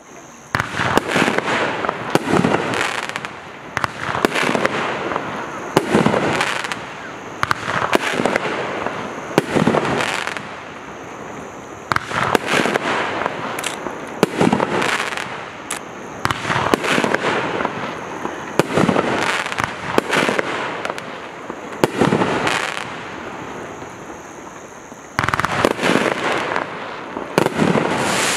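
A 500 g, 18-shot consumer fireworks cake (108 Fireworks Aero Amphibious) firing its shots one after another, about one every second or two. Each shot is a sharp bang from the break, and the noise trails off between shots.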